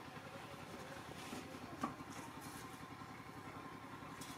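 An engine idling steadily and faintly, with one short click a little under two seconds in.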